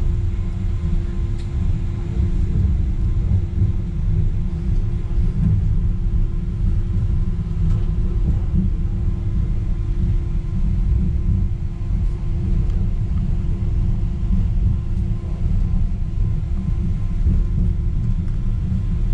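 Wuppertal Schwebebahn Generation 15 suspended car running along its overhead steel rail, heard from aboard: a steady low rumble with a constant hum over it.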